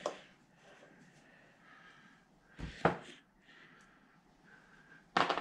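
Quiet room tone broken by a short click at the start and one sharp knock about three seconds in, the sound of assembly hardware being handled.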